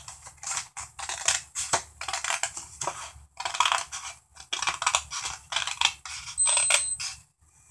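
Scissors cutting through cardstock in a run of short snips, roughly two a second, stopping shortly before the end.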